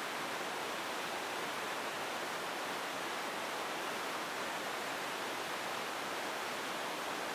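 Whitewater rapids rushing: a steady, unbroken sound of churning river water that cuts off suddenly at the very end.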